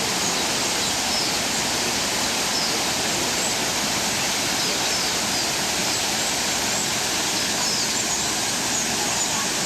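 Steady rushing of falling water, with a few faint high chirps over it.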